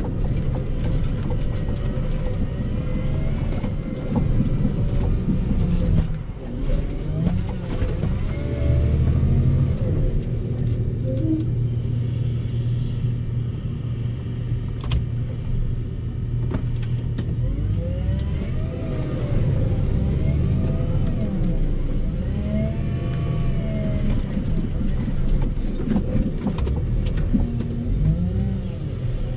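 Volvo L60H wheel loader's diesel engine working while pushing snow, heard from inside the cab, its pitch rising and falling several times in the second half as the revs change.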